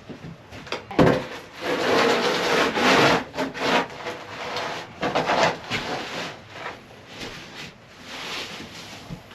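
Irregular scraping and knocking on the wooden floor of a chicken coop as things are dragged and pushed across it, with a sharp knock about a second in followed by a long scrape.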